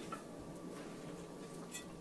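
A pause between hammer blows: faint steady background hiss with a light tick or two, and no strike falls.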